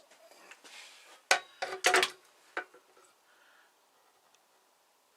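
A few sharp metallic clinks and knocks of tools and parts being handled on a workbench: one about a second in, a quick cluster around two seconds, and a lighter one shortly after.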